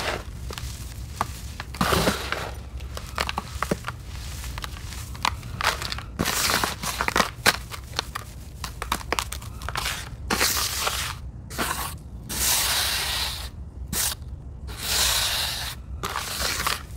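Hands raking and squeezing a damp, crumbly sand mixture in a plastic tub: gritty crunching and rustling in irregular strokes, with small clicks of grains. After about ten seconds the strokes become longer spells of crumbling.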